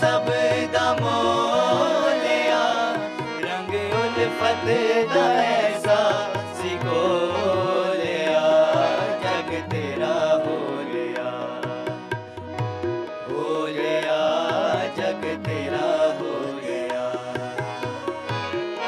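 A man singing a Hindi devotional bhajan, accompanied by tabla and other instruments.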